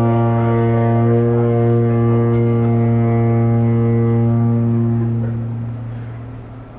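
Drum feedback: an amplified drum howling back through the speaker as a steady, loud, low drone with many overtones, like a foghorn. About two-thirds of the way through it thins out and fades away.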